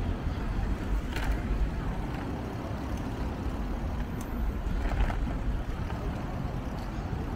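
Steady low rumble from riding a bicycle along a paved path, with a couple of brief faint rattles.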